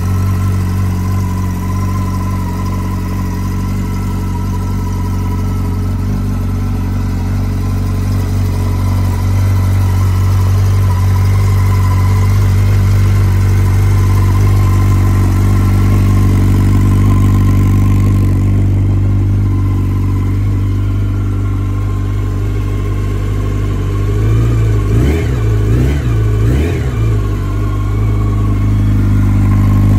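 2007 Yamaha FZ1's inline-four engine, breathing through a Leo Vince carbon exhaust, idling steadily as it warms up after a cold start. Near the end the throttle is blipped three times in quick succession, the revs rising and falling each time, before it settles back to idle.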